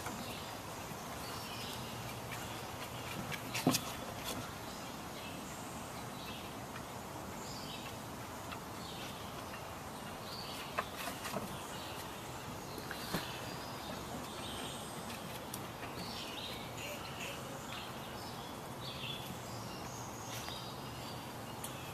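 Steady outdoor background noise with many faint, short high-pitched chirps or squeaks scattered through it, and a few sharp clicks or knocks.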